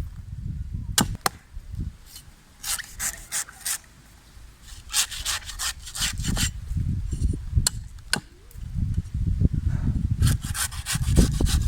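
A green coconut's husk being chopped and shaved open with a blade: irregular sharp cutting strokes in quick clusters, with a low rumble between them.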